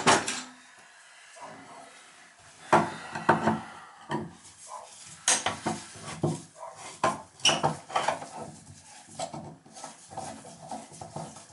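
Chrome bathtub overflow cover plate being handled and turned by a gloved hand, giving scattered metallic clicks and knocks against the tub. There is a loud knock at the start and quicker small ticks near the end.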